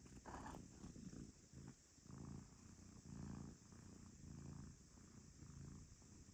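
House cat purring while relaxed and content, the low purr swelling and fading with each breath, about once a second.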